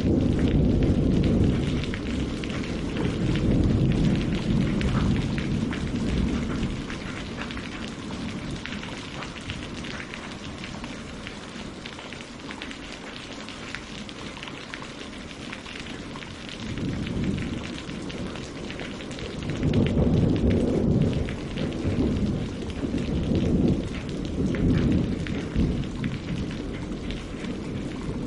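Steady rain falling on tree leaves and on a lake's surface, a dense patter of drops. Low rumbles swell and fade several times beneath it, strongest at the start and again in the last third.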